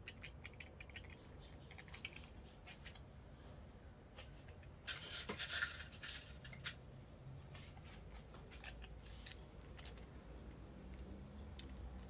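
Light clicks and taps of a small quick-release camera clamp and plate being handled and fitted together, with a short scraping rattle about five seconds in.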